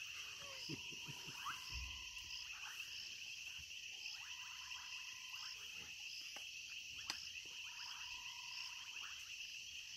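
Night chorus of frogs and insects: a steady high-pitched trilling, with a frog call that comes in repeating phrases every few seconds. A single sharp click sounds about seven seconds in.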